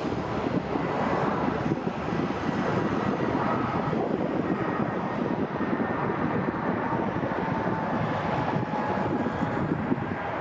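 Jet airliner passing: a steady rush of engine noise with a faint whine that slides lower near the end.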